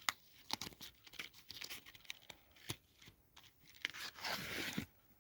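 Faint clicks and knocks of a plastic solderless breadboard being handled, with a brief scraping sound lasting about a second, about four seconds in.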